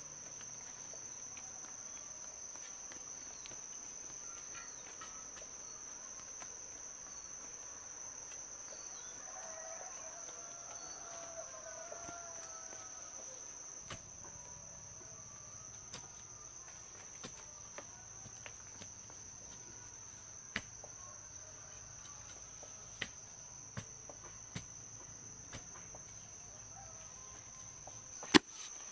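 A steady high-pitched drone of insects, with a few faint chicken calls about ten seconds in. Scattered light clicks and knocks come through it, and one sharper knock near the end.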